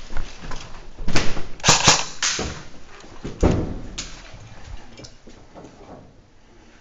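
A run of sharp knocks and thuds, several close together in the first few seconds and one more heavy thump a little later, then dying down.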